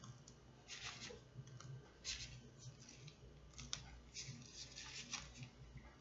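Faint, short rustles and squishes of a piping bag being squeezed as whipped cream is pushed out through its tip, coming in an uneven string through the whole stretch.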